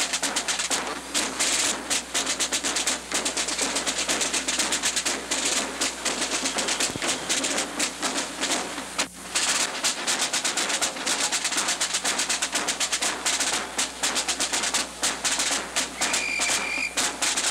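Rapid, continuous, irregular percussive clattering, with a short steady high tone near the end.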